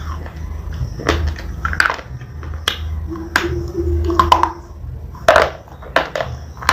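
Crunching bites into a hard, crisp white SP bar: a series of sharp, irregular crunches, some louder near the end, over a steady low hum.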